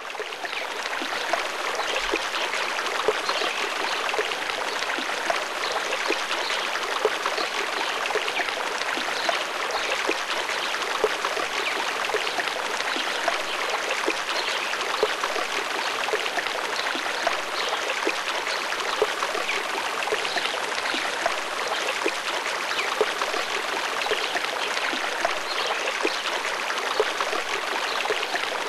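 Running water: a stream babbling steadily, with no pauses.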